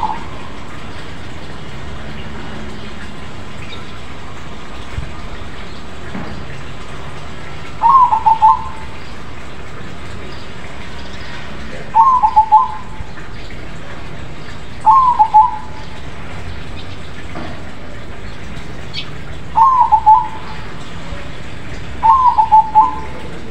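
Crossbred zebra dove (perkutut) cooing: five loud, short coo phrases, each a quick run of notes, spaced a few seconds apart over steady background noise.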